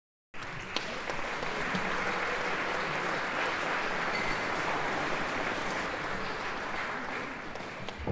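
An audience applauding, many hands clapping together. The applause cuts in abruptly just after the start, holds steady, and begins to die down near the end.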